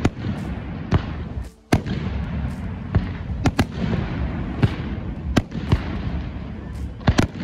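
Aerial firework shells bursting in a rapid, irregular series of sharp bangs over a steady low rumble. The sound briefly drops out about a second and a half in.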